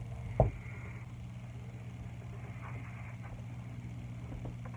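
Dry-erase marker writing on a whiteboard: a sharp knock about half a second in, then a few faint scratchy strokes, over a steady low hum.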